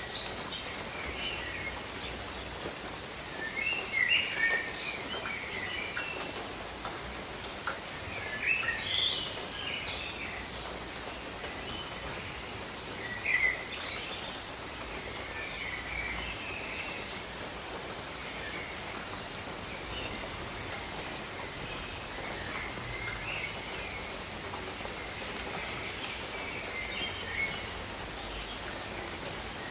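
Steady rain falling, with songbirds chirping in short scattered phrases, busiest and loudest in the first half.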